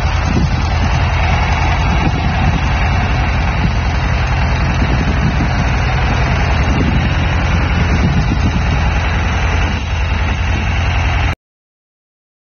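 A 1967 John Deere 2510 tractor's gas engine running steadily at low speed as the tractor moves slowly. The sound cuts off suddenly near the end.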